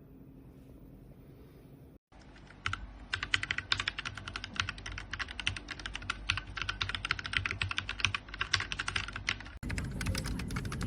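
Fast typing on a Tsunami MK-61 60% mechanical keyboard with Outemu switches: a rapid run of key clacks that starts about two seconds in after a faint hum. Near the end the typing continues with a duller, bassier sound.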